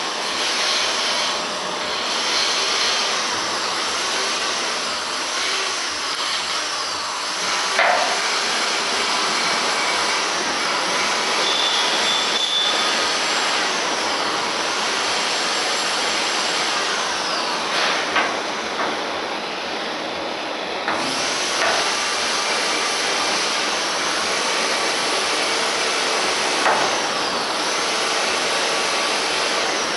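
Steady rushing noise of metal bodywork on a VW T1 windscreen frame's welded seams, with rubbing and scraping strokes and a few short knocks.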